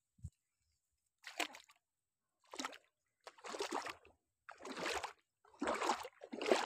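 Shallow pond water splashing and sloshing in about six short bursts, coming closer together after the first few seconds, as someone moves through the water at the edge.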